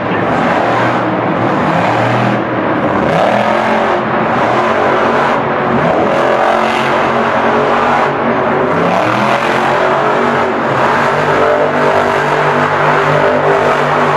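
Monster truck's supercharged V8 engine running hard, its pitch rising and falling as the driver works the throttle.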